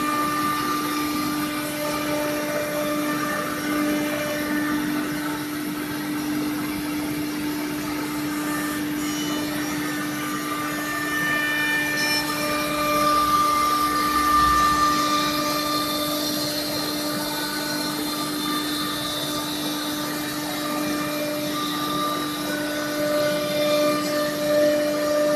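CNC router spindle running at a constant high speed while cutting a particleboard panel: a steady whine with overtones over a hiss, with fainter higher tones shifting as the gantry moves, and a slight swell in loudness about halfway through.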